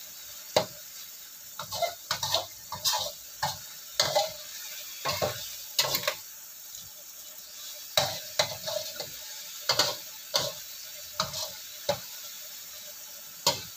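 Metal spatula stirring beef rendang in a wok, scraping and knocking against the pan in irregular strokes. Under the strokes is a steady sizzle of the coconut-milk gravy simmering down.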